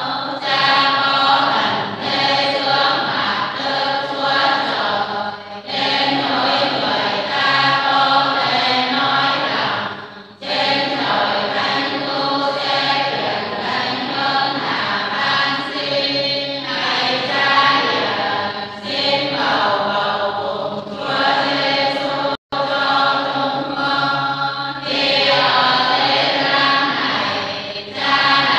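A group of voices chanting in unison: a Vietnamese Catholic 'ngắm' Lenten meditation on the Passion of Jesus, sung in the traditional northern chant style, with short pauses between phrases.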